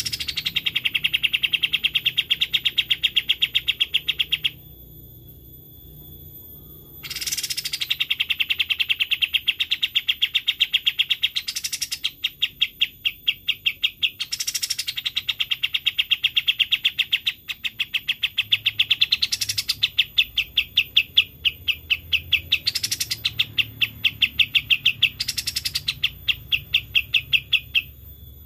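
Kapas tembak bird song: a rapid, even trill of short chattering notes that breaks off once for about two seconds. A brief higher-pitched note cuts in every few seconds.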